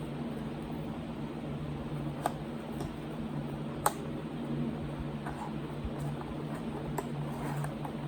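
A blind box's packaging handled and opened by hand, with a couple of sharp clicks and taps over a steady low hum.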